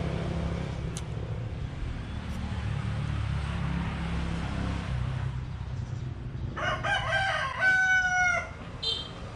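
A rooster crows once, a call of about two seconds starting roughly two-thirds of the way in, over a steady low hum.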